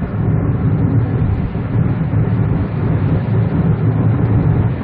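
Steady road and engine noise heard inside the cabin of a 2013 Kia Ray gasoline-turbo car driving at speed.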